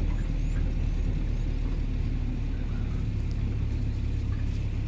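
Vehicle driving slowly along a dirt road: a steady low engine and road rumble.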